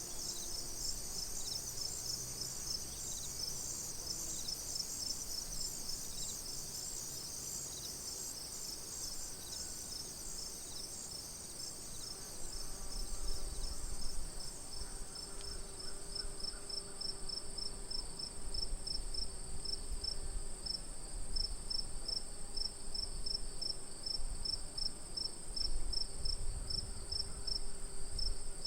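Several crickets chirping: one a continuous high trill, another a quick, evenly pulsed chirp, and a third chorus that fades away about a third of the way through.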